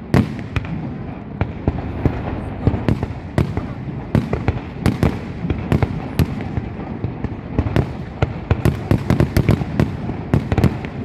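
Fireworks going off: a continuous rumble with sharp irregular bangs, coming thicker and faster from about eight seconds in.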